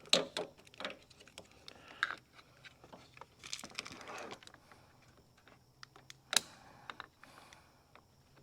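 Clicks and clatter of jump-starter cable clamps being handled and attached, with a short rustle in the middle and a sharp snap of a clamp near the end.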